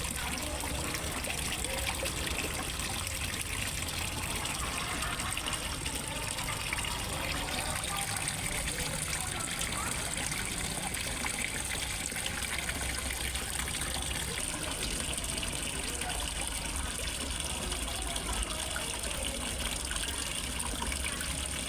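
Water steadily trickling and splashing into a fish pond from a small waterfall, with a low steady hum underneath.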